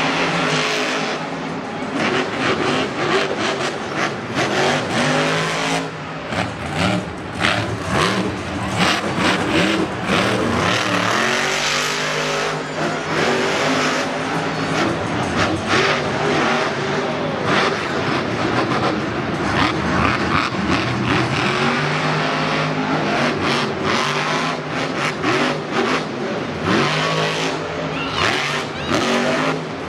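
Bakugan Dragonoid monster truck's supercharged methanol V8 revving hard as it drives. Its pitch climbs and drops again and again, with sharp crackling through the run.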